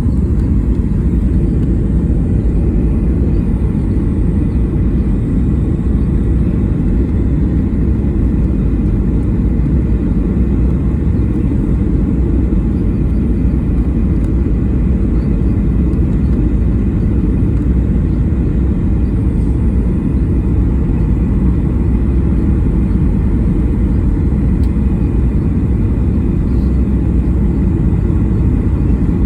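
Steady low rumble of a jet airliner, unchanging in level throughout.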